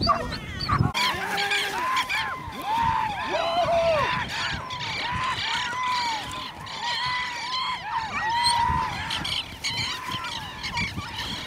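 Several animals giving short, high, arching honk-like calls again and again, overlapping one another.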